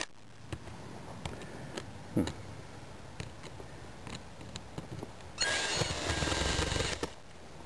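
Cordless screw gun with a square bit backing a screw out of vinyl RV trim: a few light clicks and handling sounds, then the drill runs steadily for about a second and a half near the end. The screw is stiff to turn out.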